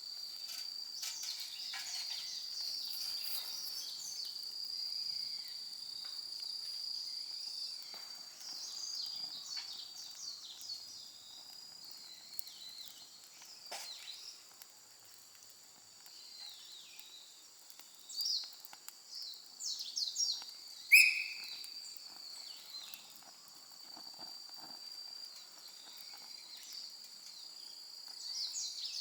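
Outdoor ambience of a steady high insect trill with scattered bird chirps. A few faint clicks and one sudden, short, loud call stand out about two-thirds of the way through.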